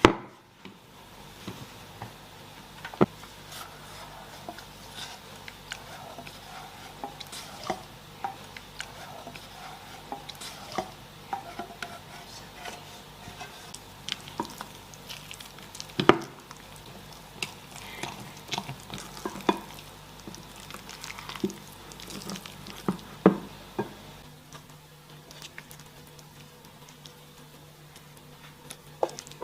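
Stirring in a bowl: a utensil scraping and mixing, with irregular clinks and taps against the bowl's sides.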